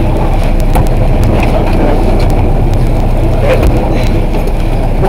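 Steady low rumble of a charter fishing boat at sea, its engine and the wind on the microphone, under indistinct voices of people on deck.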